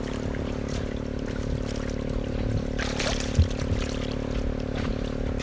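Water splashing and trickling, with a brief louder splash about three seconds in, over a steady low mechanical hum.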